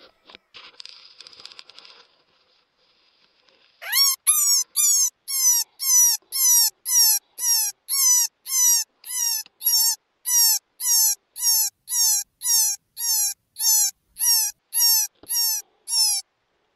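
Electronic predator caller playing a distress sound: about two dozen identical short, falling, squealing yelps, evenly repeated about twice a second, starting about four seconds in.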